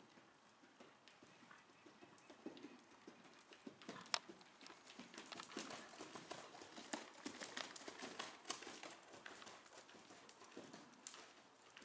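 Faint hoofbeats of a ridden horse on the soft sand footing of an indoor arena, with occasional sharper clicks. They grow louder in the middle as the horse passes close, then fade.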